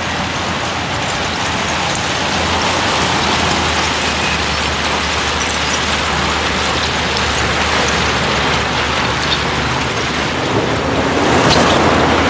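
Heavy diesel earthmoving machinery running steadily under load with a constant low engine hum. A few sharp clicks come near the end, where the sound grows louder.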